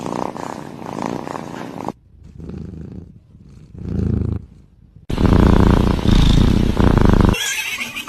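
Domestic cat purring, heard in several short spliced segments with abrupt cuts between them; loudest and closest between about five and seven seconds in.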